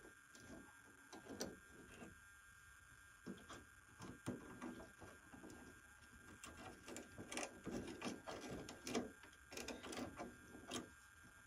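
Faint, irregular clicks, taps and rustles of hands working a wing strut into place against the wing of a model biplane, busier in the second half.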